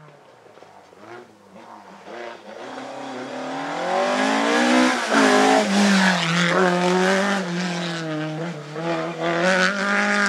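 Mk2 Ford Escort rally car's engine at full throttle, growing much louder over the first few seconds as the revs climb, dropping sharply about halfway through, then holding high and steady.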